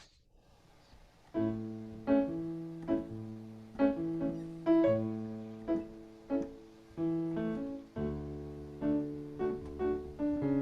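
Instrumental music starting about a second and a half in: plucked or struck chords in a steady rhythm, the introduction to a sung alleluia.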